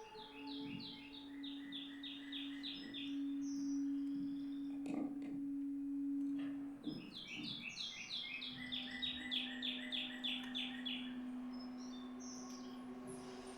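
Two runs of quick, high, bird-like chirps, each lasting about three seconds at roughly five notes a second, over a long held low note in a contemporary viola and baritone saxophone piece. The held note breaks off briefly about seven seconds in, then carries on.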